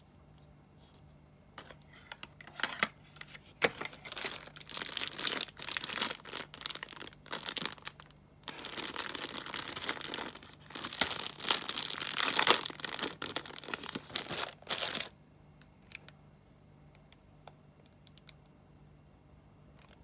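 Plastic packaging crinkling and rustling in irregular bursts as a plastic-wrapped set of cosmetic pencils is handled. It starts about two seconds in, is loudest around the twelfth second, and stops about fifteen seconds in.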